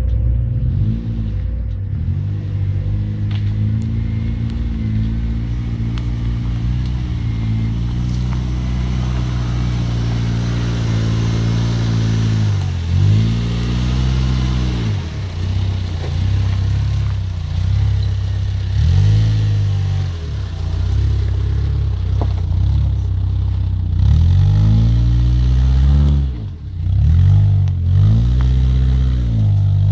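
4x4 off-road vehicle's engine revving up and down again and again as it works over rough, rutted ground.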